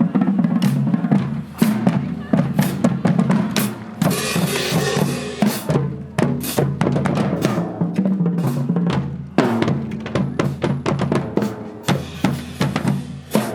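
Marching band drumline playing a cadence: snare and bass drums beating a fast, driving rhythm, with a drum roll about four seconds in.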